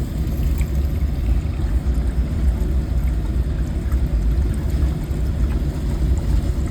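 Sump pump running: a steady low motor rumble with water being pumped and pouring.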